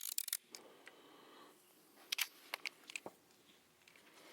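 Faint, scattered clicks and crinkles of plastic window film being handled. A small cluster comes at the start and a few single clicks follow about two to three seconds in.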